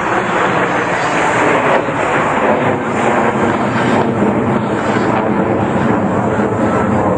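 Loud, steady jet noise from a formation of five F/A-18 Hornets, each with twin turbofan engines, flying past together.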